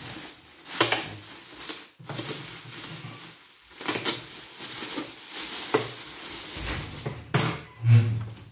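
Thin plastic bag crinkling and rustling in irregular bursts as it is pulled off a portable embroidery machine, with a dull knock near the end.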